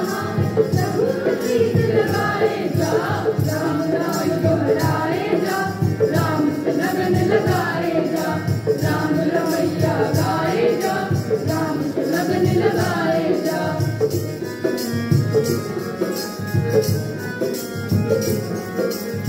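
A group of students singing a devotional bhajan together, with a steady percussion accompaniment running under the voices.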